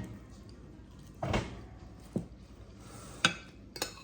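Cutlery and dishes knocking at a meal: a dull knock about a second in, a lighter one, then two sharp clicks near the end.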